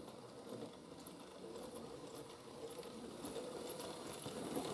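Model railway train running on the track: the locomotive's small electric motor gives a steady hum over the rattle and light clicking of wheels on rail, growing louder as the train approaches.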